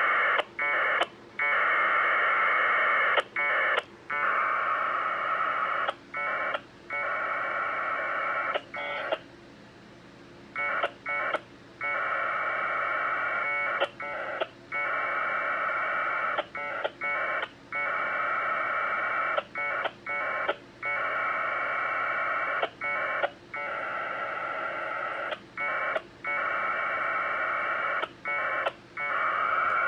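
1200-baud Bell 202 AX.25 packet data heard over a radio: bursts of the two-tone warble, one to several seconds long, broken by short gaps and very short answering bursts as the email frames are sent and acknowledged. There is one longer pause about nine seconds in.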